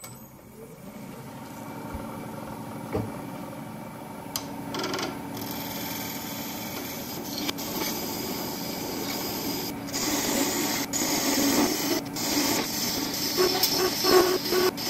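Wood lathe spinning a solid brass blank while a hand-held turning tool cuts into it: a steady scraping, rasping cut that builds in loudness and gets rougher in the second half, with scattered sharp ticks.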